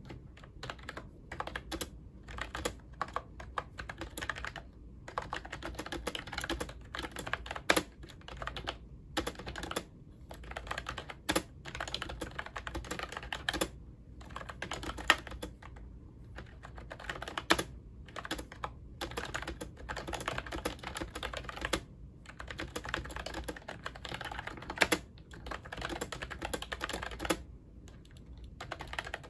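Typing on a pink Ajazz wireless keyboard with round, typewriter-style keycaps: fast runs of key clicks, broken every few seconds by short pauses, with a few sharper, louder clicks.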